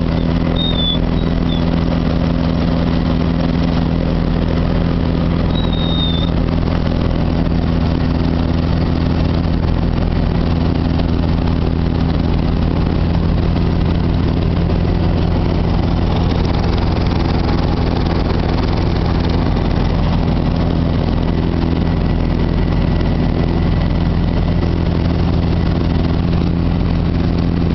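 Light aircraft's piston engine running steadily at low power while taxiing, a constant drone heard inside the cockpit.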